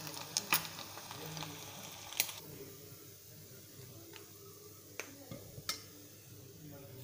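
Hot oil sizzling as fried anchovies are lifted out with a ladle, the sizzle dying down after about two seconds. A few sharp clicks of the metal ladle against the pan.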